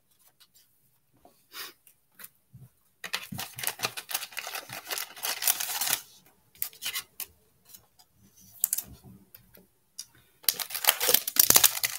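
Baseball cards and a foil pack wrapper being handled: paper and foil rustling and crinkling in a couple of stretches, with sparse light clicks of cards being flipped between them, and denser crinkling near the end.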